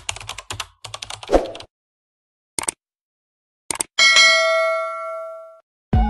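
Intro sound effects: a quick run of keyboard typing clicks for about a second and a half, a couple of single clicks, then a bell-like ding about four seconds in that rings out and fades over a second and a half.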